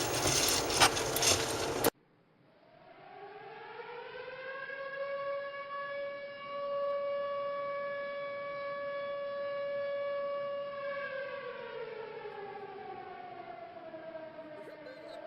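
Outdoor tornado warning siren winding up, holding one steady wailing pitch, then winding down and starting to rise again near the end. For about the first two seconds a loud rushing noise is heard, which cuts off abruptly.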